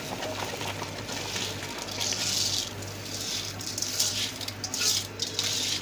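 Dry long-grain rice pouring off a perforated metal colander into a pot of boiling beef stock: a hissing patter of falling grains that swells in waves, strongest about two seconds in and again around four to five seconds, over a steady low hum.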